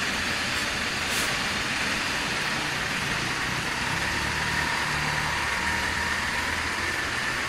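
Heavy diesel truck engines running at low revs: a steady drone with a faint whine above it.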